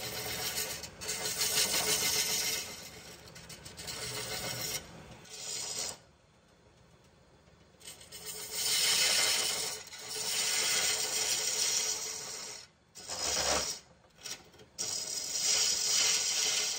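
A turning tool cutting inside a red cedar vase blank spinning on a wood lathe, hollowing out its interior: a rasping, hissing scrape as shavings come off. It comes in several cuts, with a pause of about two seconds about six seconds in and two brief breaks a little past halfway.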